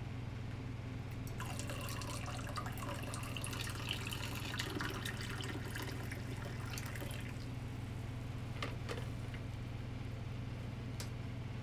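Coffee poured from a stainless steel pot into a ceramic mug: a steady splashing pour lasting about six seconds as the mug fills, then a couple of light knocks near the end, over a steady low hum.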